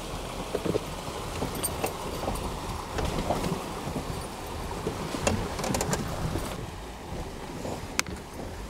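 A Jeep driving slowly through a shallow, rocky creek: its tyres churn and splash through the water, with scattered sharp knocks, the sharpest about eight seconds in.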